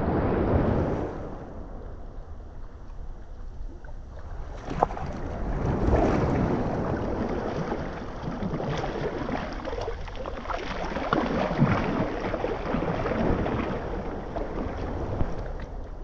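Shallow sea water sloshing and splashing as a person wades through it, in swells that come and go, with small waves lapping and wind on the microphone.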